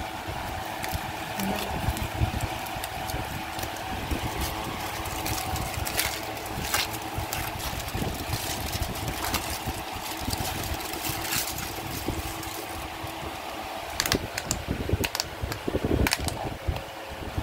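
Aluminium foil crinkling and rustling in short bursts as it is unwrapped from a roll of chapatis. Near the end comes a cluster of louder clicks and snaps from a plastic container lid being pried off. A steady background hum runs underneath.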